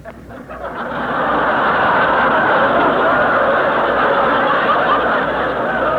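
Studio audience laughing after a comic line, swelling over the first second and holding, heard through the narrow sound of a 1940s radio transcription recording.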